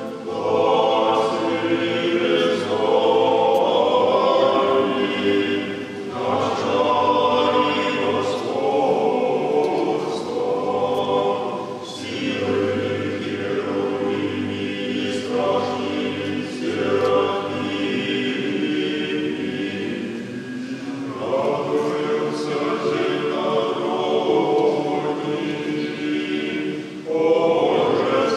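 Monastic choir singing Russian Orthodox liturgical chant unaccompanied, in long held phrases with brief pauses between them.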